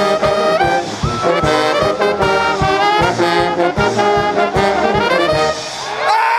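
Hockey pep band playing a brass tune, trombones and trumpets over a steady drum beat, with the drums dropping out near the end under a held chord.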